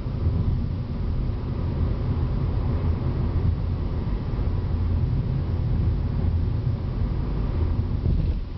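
Steady low rumble of a car in motion, engine and tyre noise heard from inside the cabin.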